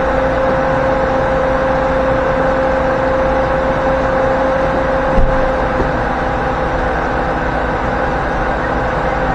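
2008 GMC Yukon XL running steadily with its new ignition coils fitted, a constant engine drone, with one short knock about five seconds in.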